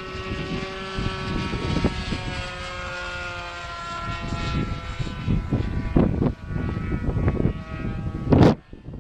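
O.S. FX .61 two-stroke glow engine of a radio-controlled model plane running in flight with a muffler, a steady drone whose pitch drifts slightly as the plane moves. In the second half, wind buffets the microphone with rumbling gusts and a couple of loud thumps.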